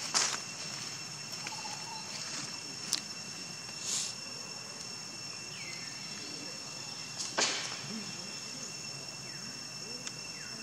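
Insects trilling steadily in several constant high tones, with a few short sharp sounds over them, the loudest about seven seconds in.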